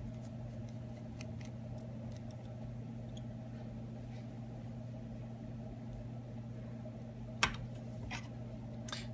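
A steady low electrical hum, with a few light clicks of small tools against the phone as its last screw is taken out; the sharpest click comes about seven seconds in, with two fainter ones after it.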